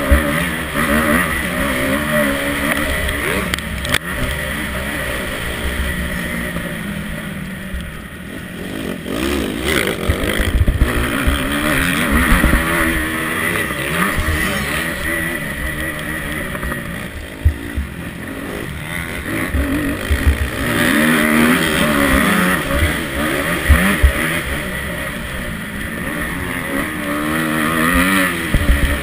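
Onboard sound of a motocross bike's engine being revved hard and backed off again and again through the gears while racing over a dirt track, with wind rush on the microphone and a few sharp thumps.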